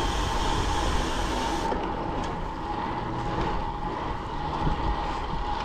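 Wind rushing over the camera microphone and road-bike tyres rolling on asphalt during a fast descent: a steady rumbling noise with a faint steady whine, easing slightly after about two seconds.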